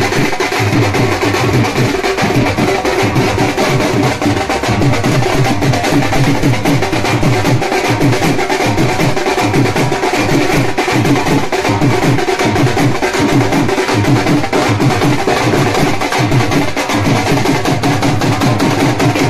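Dhol drums played in a rapid, steady dance beat.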